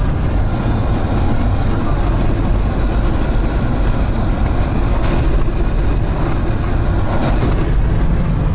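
Steady road and engine noise inside a car's cabin while it drives at highway speed, a continuous low rumble.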